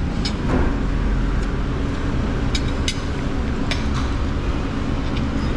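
A few light clinks of a spoon and fork on a plate, over a steady low rumble.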